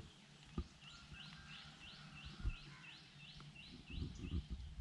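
A bird calling with a quick series of short rising chirps, about three a second, starting about a second in and fading after about three seconds. There are a few dull low thumps, with louder low rumbling and knocks from about four seconds in.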